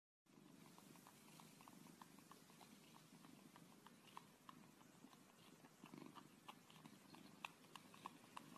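Very faint purring of a tabby cat suckling on a person's finger, with soft repeated clicks from its mouth, about three a second, a few a little louder near the end.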